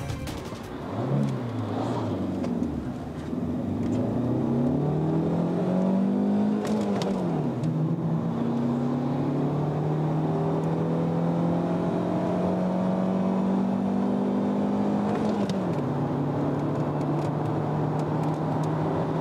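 Lancia Ypsilon 1.2's four-cylinder petrol engine at full throttle in a 0–100 km/h run, heard from inside the cabin. The engine pitch climbs, drops at a gear change about 2 s in, and climbs again to a second shift about 7 s in. It then rises more slowly through the next gear to a third shift near the end, and starts climbing once more.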